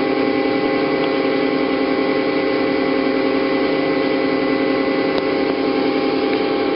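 Hyd-Mech V-18 vertical bandsaw running steadily, with a constant hum of several fixed tones and no change in pitch or level.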